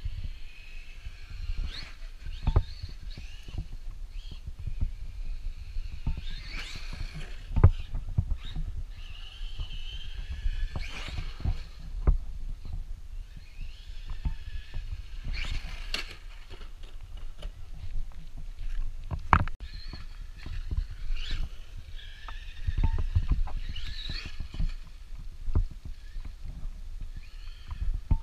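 Traxxas Maxx electric RC monster truck driving, its motor whine rising and falling with the throttle. Many short knocks and clatters come from the chassis and wheels over the ground, above a steady low rumble.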